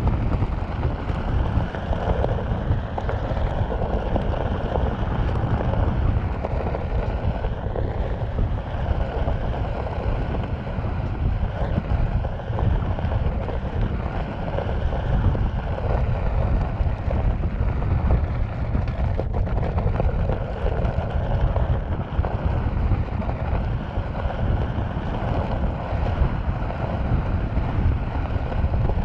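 Onewheel electric board rolling over desert gravel, the tyre crunching and rumbling steadily, with heavy wind buffeting on the action camera's microphone. A faint whine from the hub motor drifts up and down in pitch as the speed changes.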